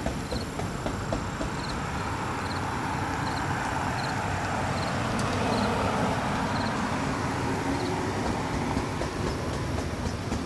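Rumbling noise of a passing vehicle that swells over several seconds and fades again, with faint high ticks about once a second.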